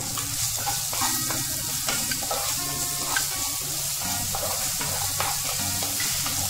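Ginger-garlic paste and whole spices sizzling in hot oil in a kadhai, stirred with a wooden spatula that scrapes over the pan.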